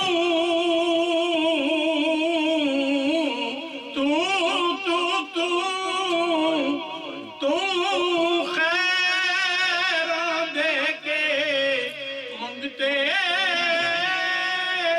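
A man singing a devotional Punjabi naat solo, drawing out long wavering notes in phrases of a few seconds, with short breaks between them.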